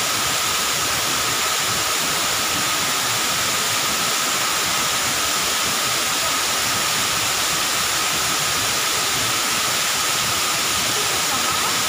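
Steady rush of a waterfall pouring down a rock face, an even hiss of falling water with no breaks.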